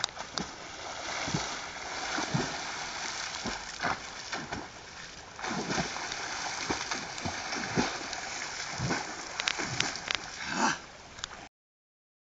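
Swimmers splashing and thrashing in open water, with a run of irregular splashes over several seconds; the sound cuts off suddenly near the end.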